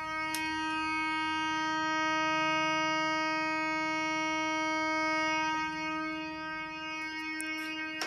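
Keyboard synthesizer played through a speaker with added reverb, sounding one steady, unbroken buzzy horn tone in imitation of a Simplex fire alarm horn.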